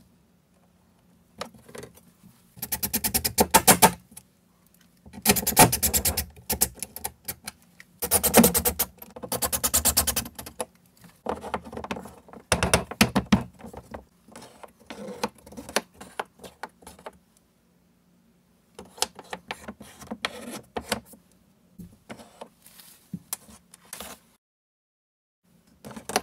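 Power drill/driver run in repeated short bursts of a second or two, each a fast, even clatter, stopping and starting as screws are driven to mount a wall coat rack.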